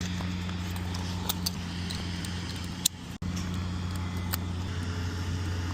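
An engine runs steadily with a low, even hum, overlaid by scattered light clicks and rattles. The sound drops out briefly about three seconds in.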